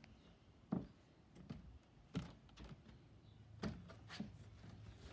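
Scattered light knocks and taps, about six of them, from a child climbing barefoot up onto a wooden play-fort platform, hands and feet striking the timber beams.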